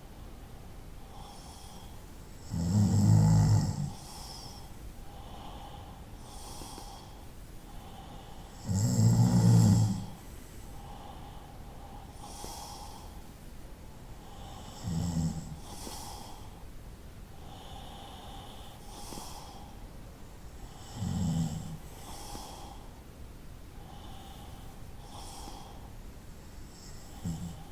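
A person snoring in slow, regular snores about every six seconds. The first two are the loudest, about a second each, and the later ones are shorter and softer, with faint breathing between them.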